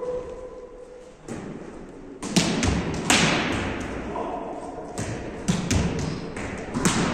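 Volleyballs being struck with forearms and hands in a passing drill: a quiet first two seconds, then a run of sharp slaps and thuds about every half second, each ringing on in a large echoing gym hall.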